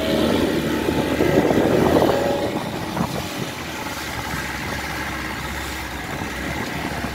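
A boat engine idling steadily, with people's voices over the first two seconds or so.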